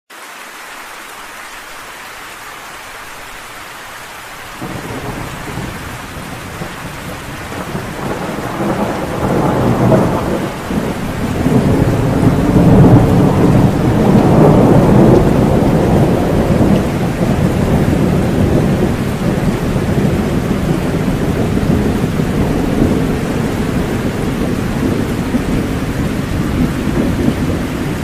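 Steady rain falling. About four seconds in, a long rolling rumble of thunder joins it, builds to its loudest around the middle, and keeps rumbling on under the rain.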